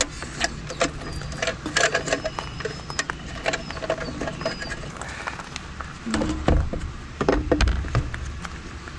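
Scattered clicks, taps and rattles of plastic and metal parts being handled on an electric bike frame, with heavier knocks about six and seven and a half seconds in as the battery pack is brought up against the frame.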